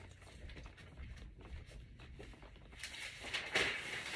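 Faint room tone with scattered light knocks, then rustling and handling noises that grow louder near the end.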